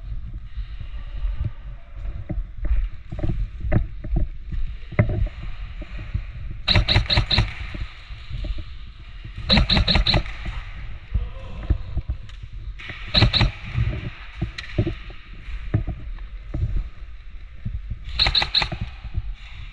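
Airsoft guns firing short bursts of three or four rapid shots, four times, over a steady low rumble of movement on the microphone.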